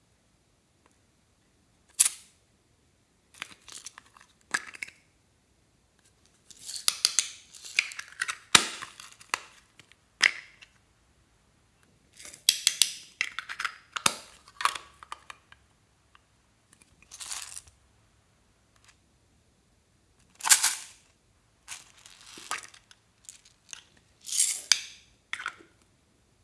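Hard plastic novelty slime containers being handled and opened: sharp clicks and snaps, and several stretches of crackling and rustling, separated by short silences.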